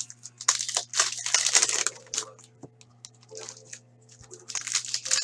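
Plastic trading-card pack wrappers crinkling and being crumpled as hobby packs are torn open, in two spells: about half a second in, and again near the end.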